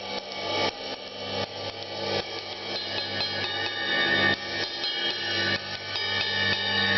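Paiste 404 ride cymbal played with a drumstick in a steady run of strokes, about three a second, some of them on the bell, with its high ring building up underneath. It has a little trashy edge, typical of Paiste's lowest-budget line.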